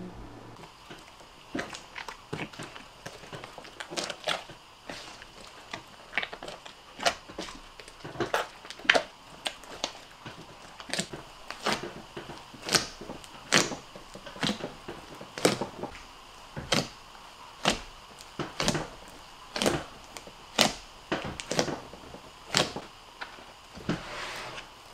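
Hand pressing and poking a large tub of thick glue slime, giving a string of sharp clicks and pops, about one or two a second, louder and more regular from about eight seconds in.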